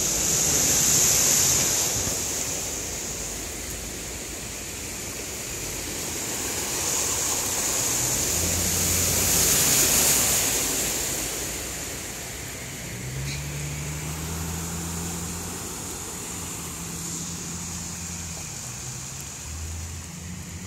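Floodwater rushing down a street in the rain, a steady hiss that swells twice. A low hum joins about eight seconds in and holds to the end.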